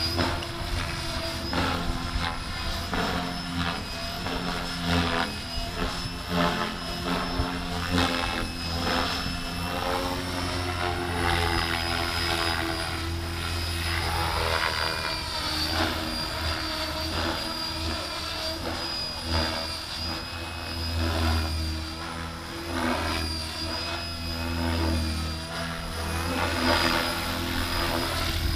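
Electric RC helicopter in flight: a Gaui X5-based 'X6' with 550mm main blades turned by a Scorpion HKIII-4035 500kv motor. A steady high motor and drive whine sits over the low chop of the rotor blades, swelling and fading as the helicopter moves about.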